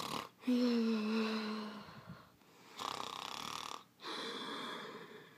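Snoring imitated by a person: slow, breathy in-and-out breaths, three in turn, the first with a low, slightly falling hum.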